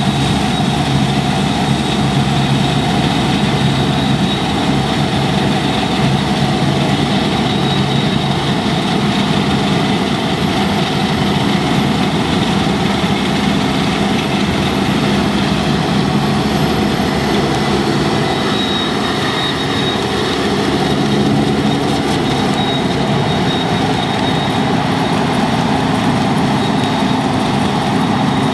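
Deutz-Fahr 6095 HTS combine harvester running steadily under load while harvesting barley, its engine and machinery making an even drone with a faint high whine.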